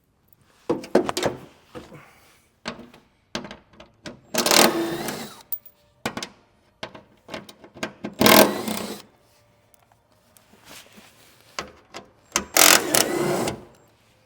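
Cordless power tool spinning out underbody shield bolts in three short runs of about a second each, its motor whine rising as it spins up, with clicks and knocks of the socket and loose bolts between runs.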